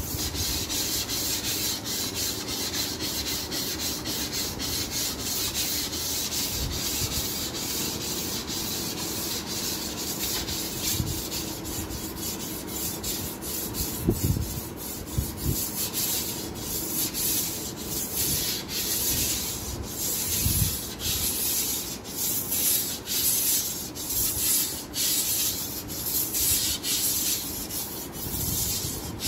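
Long steel blade of a Master Kuo GL-500 tuna knife being stroked back and forth on a 600-grit Chosera water stone, an abrasive scraping rub at about two strokes a second, the strokes crisper in the second half.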